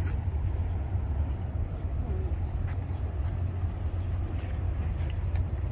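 Steady low rumble of wind buffeting the microphone, flickering from moment to moment, over a faint even outdoor hiss.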